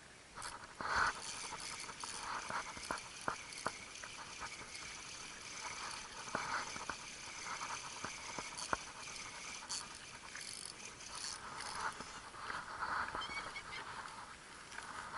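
Daiwa Certate spinning reel being cranked steadily on a light rod, a continuous whirring retrieve with scattered sharp clicks and taps, the loudest about a second in.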